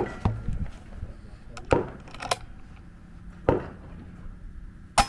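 Prophet 2.1 PCP air rifle firing a rapid string of shots: four sharp reports about a second and a half apart, with a lighter click between the second and third.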